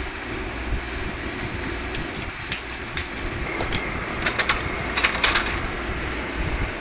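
Refrigerator compressor running steadily while the fridge is charged with refrigerant gas, with a string of sharp metallic clicks and taps from about two seconds in to about five and a half seconds in.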